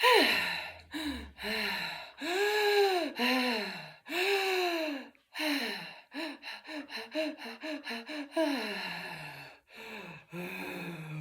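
A woman breathing fast and voicing a sound on each breath as a deliberate trauma-exposure breathing exercise. First come several long rising-and-falling cries, then a quick run of short panting cries about five a second, then a lower drawn-out tone near the end.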